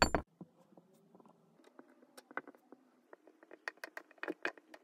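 Kinetic sand balls being pressed down in a glass with a wooden tamper: faint, irregular crumbly crackling that grows denser and louder toward the end as the sand compacts.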